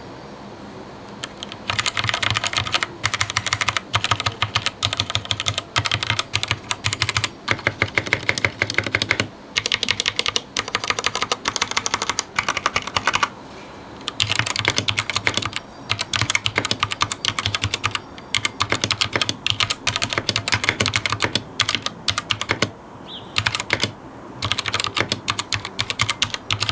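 Typing on a cheap 60% mechanical keyboard with generic linear red switches, unmodified, stock sound: quick runs of keystroke clacks starting about two seconds in, broken by several short pauses.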